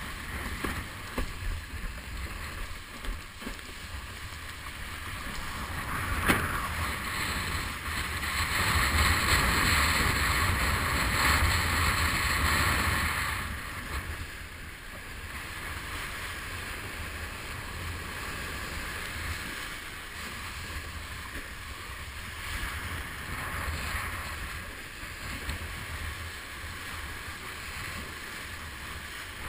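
Wind buffeting the microphone over the steady rush and hiss of water spraying past a planing windsurf board on choppy water. The spray hiss grows louder for several seconds in the first half, and a single sharp slap of water comes about six seconds in.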